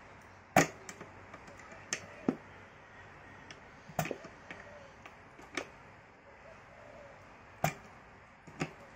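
Restored Leyland Leopard bus gear selector being shifted by hand through its gate: a series of sharp, unevenly spaced metallic clicks as the lever snaps into each gear position.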